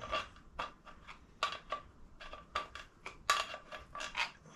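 A metal hand tool scraping and clicking against the inside of a gearbox casing, a dozen or so short, irregular strokes, as thick old sludge is dug out of it.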